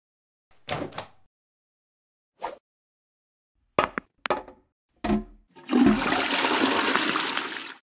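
Toilet flushing: a rush of water for about two seconds that cuts off suddenly near the end, a dubbed sound effect rather than real water. Before it come about five short, separate clunks.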